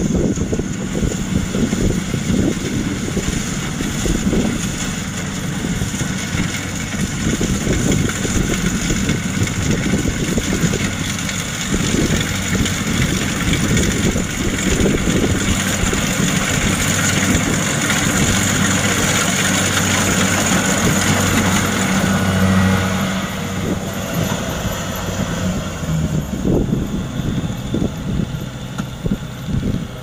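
Kubota DC-70 PLUS rice combine harvester running steadily while it cuts and threshes: a continuous diesel engine drone under the rush of the cutting and threshing machinery. It is loudest as the machine passes close, about two-thirds of the way through, and falls away near the end as it moves off.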